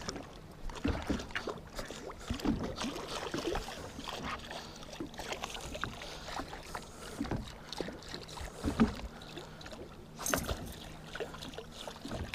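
Small waves lapping and slapping irregularly against a boat hull, over a faint steady low hum. About ten seconds in there is a brief louder rush.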